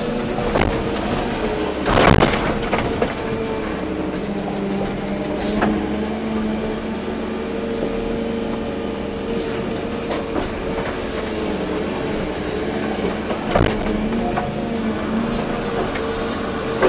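Volvo EC240B excavator's diesel engine running steadily under working load, its pitch wavering slightly as the hydraulics work. A few sharp knocks come through, the loudest about two seconds in.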